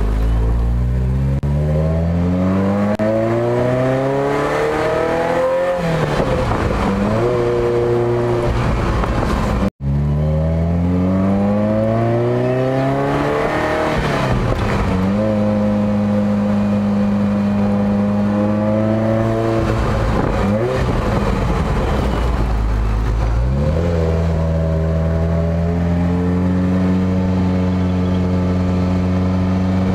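Ferrari 308 GTSi's V8 through a Stage 2 Tubi exhaust, heard from the cabin on the move. The engine pulls up through the gears with a rising note, breaks off at each gear change, then holds steadier revs, and climbs again slowly near the end. The sound drops out for an instant just under ten seconds in.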